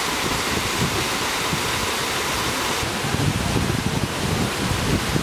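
Steady rushing of a small waterfall splashing over rocks. About three seconds in the sound shifts to a slightly duller rush with irregular low buffeting, like wind on the microphone.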